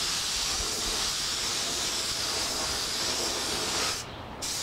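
Compressed-air gravity-feed paint spray gun hissing steadily as it sprays a coat of paint. The trigger is let off for a moment about four seconds in, then the hiss starts again.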